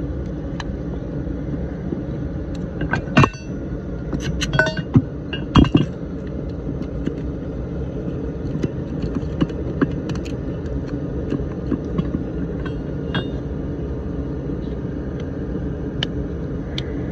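Steady low rumble of a running torpedo heater. Several sharp metallic clinks and knocks of clutch parts and tools being handled come about three to six seconds in, some of them ringing briefly.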